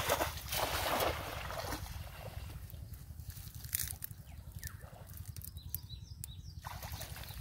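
Water splashing as a cast net is thrown into a shallow pond: loudest in the first two seconds as the thrower's foot and the net hit the water, then quieter dripping and trickling. A steady low rumble runs underneath.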